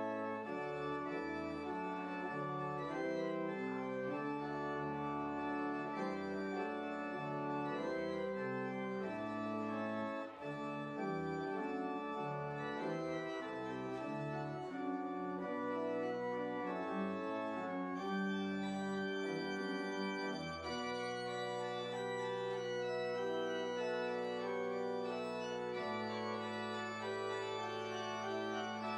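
Church pipe organ playing, its chords moving quickly at first, then settling into long held chords for the last several seconds.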